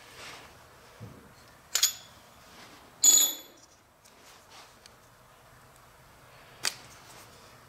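Steel parts of a valve grinder's collet spindle and a valve being handled: a few sharp metal clinks. The loudest comes about three seconds in and rings briefly.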